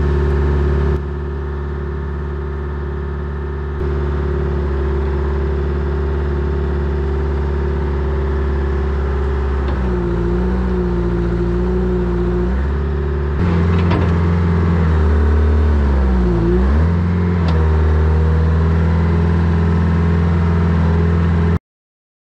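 Old P&H hydraulic excavator's diesel engine running steadily while the bucket works at an uprooted tree's root ball. Its pitch dips and recovers a couple of times as the hydraulics take load, with a few sharp clatters. It cuts off suddenly near the end.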